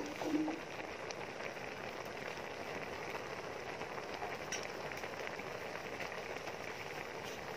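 Soup boiling hard in a large metal wok over a wood fire: a steady bubbling hiss with a few faint crackles. A short louder sound comes right at the start.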